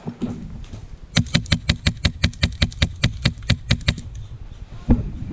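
Airsoft gun firing a rapid string of about eighteen shots, roughly six a second, lasting close to three seconds. A single thump follows near the end.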